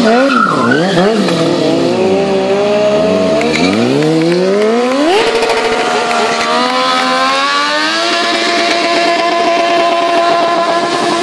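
Sport motorcycle engine revved up and down rapidly during stunt riding. About five seconds in it climbs to a high rev and holds there steadily, as the rear tyre is spun in a smoking burnout.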